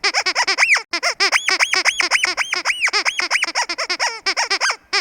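Rubber squeaky pig dog toy squeezed over and over, giving quick high squeaks several times a second, with a few longer drawn-out squeaks in the middle.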